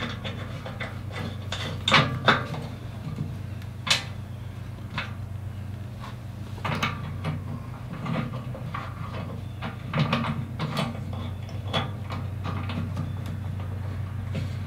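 Scattered sharp metallic clicks and clinks of a bolt, lock washer and nut being handled and started by hand on the steel top edge of a John Deere 1025R loader bucket, over a steady low hum.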